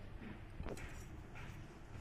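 Faint clinks and scrapes of a metal ladle stirring thickened milk in a kadhai, over a low steady hum.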